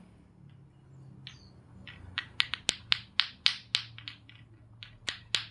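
Lato-lato clackers: two hard plastic balls on strings knocking together. A few scattered clacks at first, then from about two seconds in a steady run of sharp clacks, about four a second, as the balls swing up and down.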